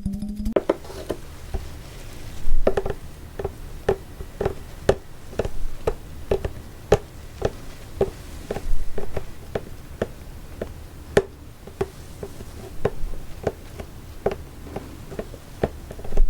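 Close-miked ASMR trigger sounds: a run of short, sharp clicks and taps at roughly two a second, uneven in strength, with one louder click about eleven seconds in.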